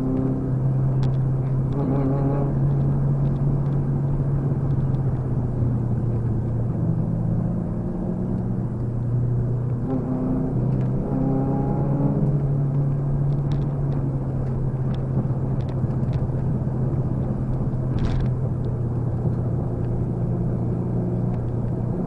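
Car engine and road noise heard from inside the cabin: a steady low drone that shifts in pitch now and then as the revs change.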